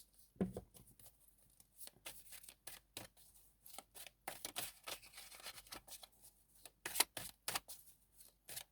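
Tarot cards being shuffled and handled: a faint, irregular run of soft snaps and clicks, thickening into a denser rustle around the middle.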